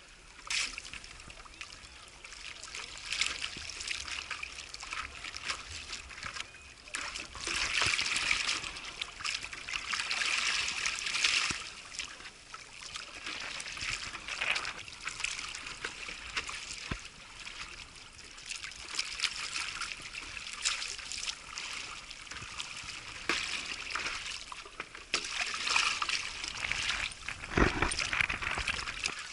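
Water splashing and trickling against a stand-up paddleboard as it moves along, heard close to the waterline, rising and easing in stretches of a few seconds.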